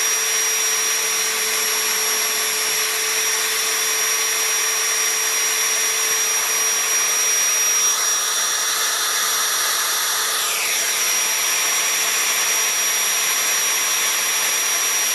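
Motor-driven wire brush wheel spinning steadily with a high, constant whine. About eight seconds in, a rasping joins as a steel knife blade is pressed against the brush, dipping in pitch a couple of seconds later.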